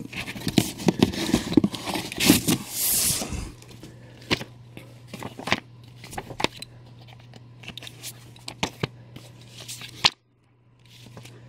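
Comic books being pulled out of a cardboard shipping box and laid onto stacks: glossy paper rustling and sliding against cardboard and other comics. It is busy for the first few seconds, then thins to scattered taps and rustles, and the sound cuts out completely for about a second near the end.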